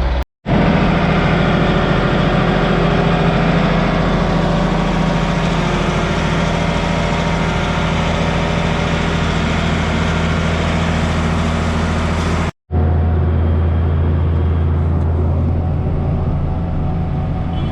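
Diesel engines of beet-harvesting farm machinery (tractor and beet harvester) running steadily under load. The sound cuts out briefly twice, and after the second break a lower, heavier drone takes over.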